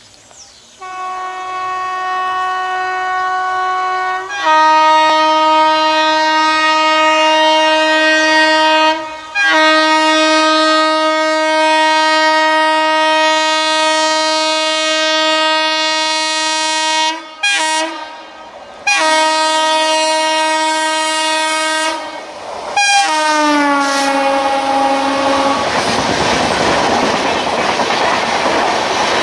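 Indian Railways WAP-7 electric locomotive's horn sounding in long, almost unbroken blasts with a few short breaks, stepping down to a lower tone about four seconds in. About 23 seconds in, the horn's pitch slides down as the locomotive passes, then it stops and the rumble and wheel clatter of the express train running past take over.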